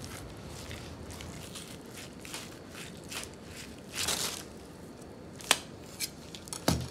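Salmon skin being pulled and rocked against a knife blade held flat on a wooden cutting board: soft scraping and tearing as the skin parts from the flesh, with a louder rasp about four seconds in. Near the end come two sharp clicks and a knock on the board.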